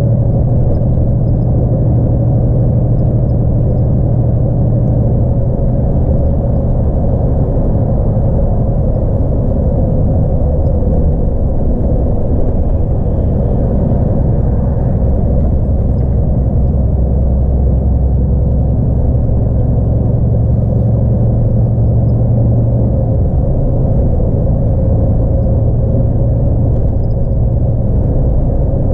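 The 10.8-litre PACCAR MX-11 straight-six diesel of a 2017 DAF XF 106 truck running steadily at motorway speed, heard from inside the cab as a constant low drone mixed with road and tyre noise. The engine note swells slightly twice.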